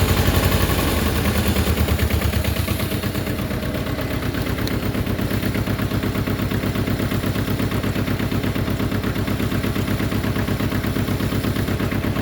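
Engine running with a rapid, even chug, louder for the first two seconds or so, then steady.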